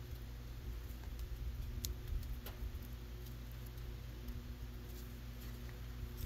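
Rocket stove burning corn cobs under a pot of water: a steady low rumble from the fire, with scattered small crackles and ticks, the sharpest about two seconds in.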